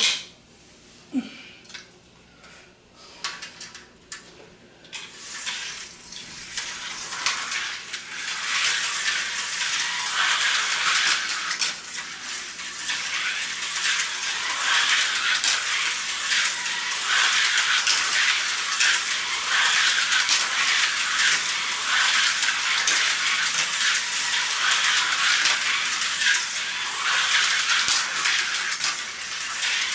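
HO-scale Tyco slot cars running laps on a plastic track: a steady rattling and clicking of the cars over the track and its joints, with a faint motor whine. It starts sparse with a few clicks and builds to a continuous run about six seconds in.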